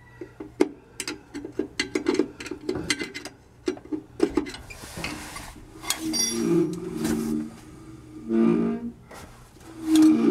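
Rapid clicking as the brake adjuster on a 1949 Chevy 3100's rear Huck drum brake is turned, then the rear wheel spun by hand with the brake shoes dragging on the drum, a low moaning and groaning that comes three times. The groan is the sign of shoes adjusted tight against the drum and making contact.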